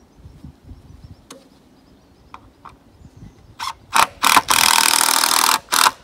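Cordless power driver sinking a wood screw through a 2x4 end cap into a 4x4 beam. It starts with a couple of short trigger bursts past the halfway point, then a run of about a second as the screw drives in, and another short burst near the end.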